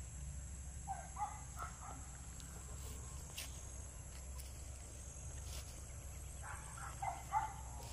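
Quiet rural ambience: a steady high insect buzz, with two short clusters of distant bird calls, one about a second in and one near the end.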